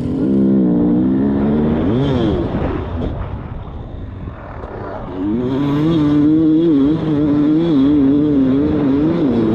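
Dirt bike engine running and revving, its pitch wavering with the throttle; a quick blip about two seconds in, quieter for a few seconds, then louder again under load from about halfway through.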